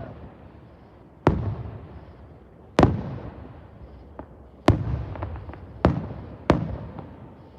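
Fireworks going off: five loud bangs at irregular intervals, each trailing away in a rumbling echo, with a few fainter pops in between.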